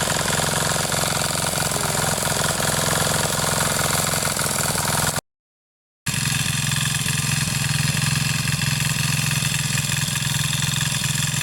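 Power tiller engine running steadily while ploughing, with a low even hum. It drops out to dead silence for under a second about five seconds in, then carries on.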